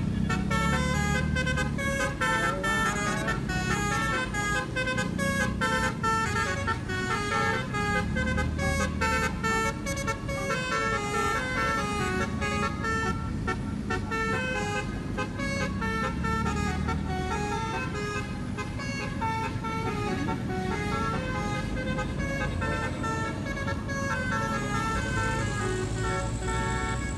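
A 12-trumpet basuri telolet air horn playing a tune, with several tones sounding together and stepping quickly from note to note.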